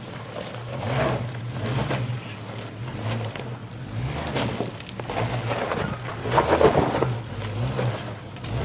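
Jeep Grand Cherokee's engine running at low revs as it crawls over rocks, its hum swelling and easing as the throttle is fed in and out. Louder noisy rushes come about a second in and again at around two-thirds of the way through.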